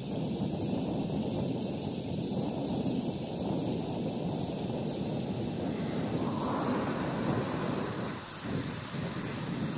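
Ambient background: a steady low rumble with a thin, high cricket-like chirp pulsing evenly about three times a second.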